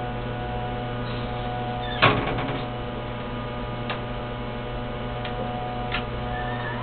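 Steady electrical hum with several held tones from a disk punch machine standing powered up. A sharp knock with a short ring comes about two seconds in, and light clicks follow near four and six seconds as buttons on its control panel are pressed.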